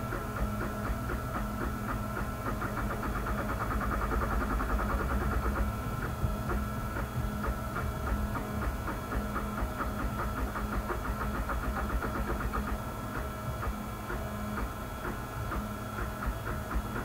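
Wooden-frame 3D printer printing: its stepper motors whine and buzz in several shifting tones as the print head moves, over a fast ticking and a steady low hum.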